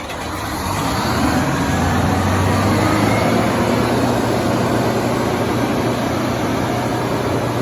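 Kohler 350 kW diesel generator's Detroit Diesel 92-series two-stroke engine, freshly started, coming up to speed over the first second or so and then running steadily and loud.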